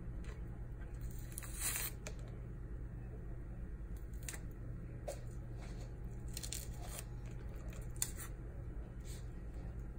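Pomelo segment membrane being torn and peeled off by hand: short, scattered tearing and squishing rasps, with a sharp tick about eight seconds in and a low steady hum underneath.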